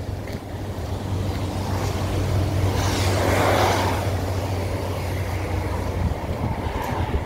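A motor vehicle driving past, its engine hum and tyre noise swelling to a peak about halfway through and then easing off.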